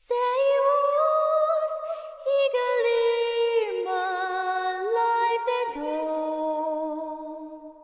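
Music: a high female voice singing long held notes that slide from one pitch to the next, with no beat or bass under it.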